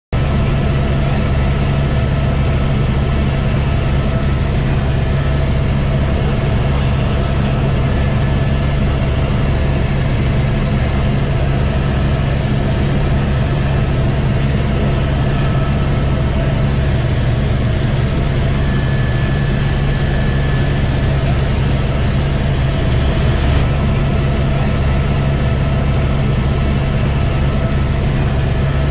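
Helicopter in flight heard from inside the cabin: a loud, steady drone of engine and rotor with several constant hums layered in it.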